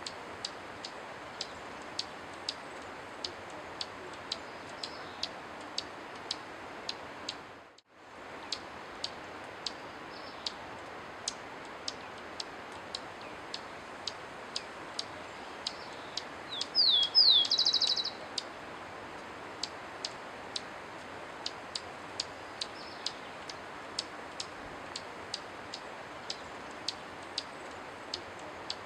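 Steady ticking, about two ticks a second, over a faint hiss, with a short dropout about a quarter of the way in. About halfway through, a comesebo andino gives one short call: a few quick downward-sliding notes running into a brief buzzy trill.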